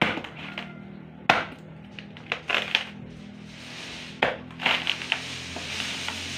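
Bolo machete chopping into a husked coconut on a wooden chopping block: a run of sharp, irregular hacking strikes, with rougher splitting and cracking near the end as the coconut breaks open. It is an edge test of the freshly repaired blade, to see whether it chips. A steady low hum runs underneath.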